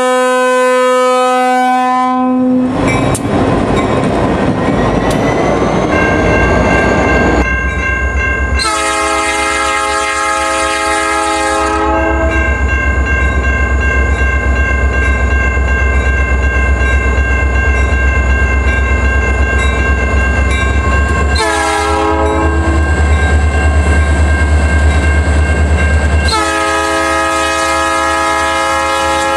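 Diesel freight locomotive horns sounding blasts at close range. First comes one from a Norfolk Southern unit, then a long, a short and a long blast from an EMD locomotive leading a freight. Between the blasts the engine's heavy rumble grows as it passes close by.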